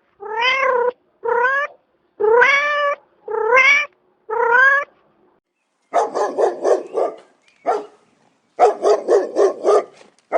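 A cat meowing five times, each meow about half a second long and rising in pitch. Then two runs of rapid, harsh calls from another animal follow, about five a second.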